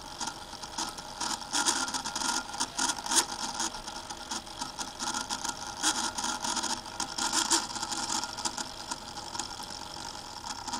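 Sony Vaio VGN-CS320J laptop cooling fan whirring, with a steady hum of several tones and irregular scraping, chirping crackles: the sound of a failing fan, due for replacement.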